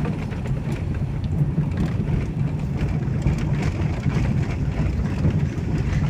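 Car driving on an unpaved dirt road, heard from inside the cabin: a steady low rumble of engine and tyres with light knocks and rattles from the bumpy surface.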